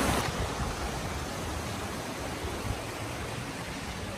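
Rushing white water of a mountain creek cascading over rocks: a steady hiss that eases a little.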